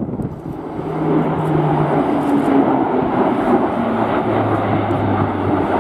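Airbus A400M Atlas's four Europrop TP400 turboprop engines at display power, a loud steady drone of propeller and engine noise with humming propeller tones; a deeper hum takes over about four seconds in as the aircraft turns overhead.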